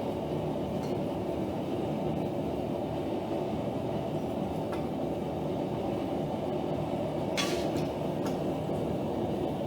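Homemade blacksmith's forge running during its first heating test, a steady low rumble with no change in level. A short sharp noise cuts in about seven and a half seconds in.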